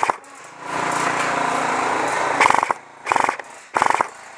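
G&P MK46 electric airsoft machine gun firing full-auto: one sustained burst of about two seconds, then three short bursts about half a second apart, its gearbox cycling in a rapid buzzing rattle.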